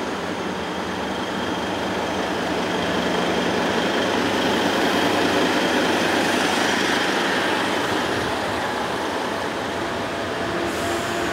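Heavy truck and multi-axle low-loader trailer rolling past close by: a steady rumble of engine and tyre noise, growing a little louder about halfway through and then easing.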